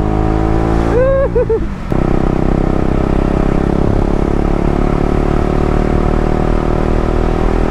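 KTM Duke 250's single-cylinder engine running steadily through a cheap aftermarket replica Akrapovic exhaust while the bike is ridden.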